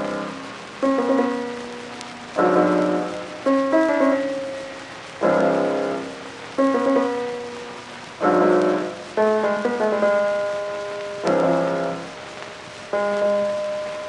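Piano music: slow chords struck every second or two, each ringing and fading before the next.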